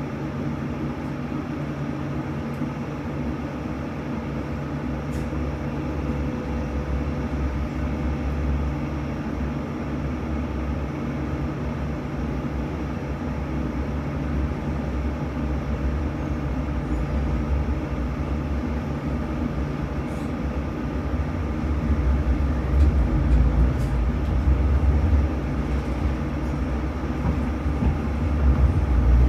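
Sheffield Supertram tram running along its line, heard from inside the car: a steady low rumble of wheels on rail with a steady motor hum over it. The rumble grows louder about three-quarters of the way through.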